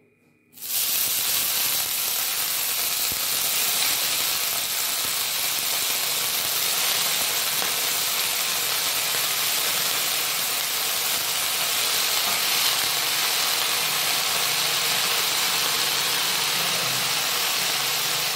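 Wet bathua leaves steaming and sizzling in a hot steel kadhai: a steady hiss that starts suddenly under a second in.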